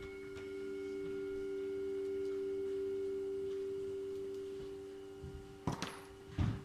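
A sustained ringing tone of two close pitches swells up, holds and slowly fades. Near the end come two sharp knocks.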